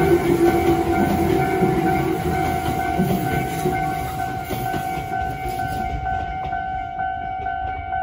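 Tobu electric commuter train running past a level crossing, its wheels rumbling over the rails and fading as the last car clears about five to six seconds in. The crossing's electronic warning bell rings on in a steady repeating pattern throughout.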